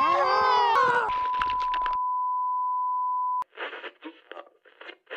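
A man's loud, high laughing yell, then a steady electronic beep at one pitch that holds about two seconds and cuts off suddenly. After a brief gap, thin, muffled talk begins near the end.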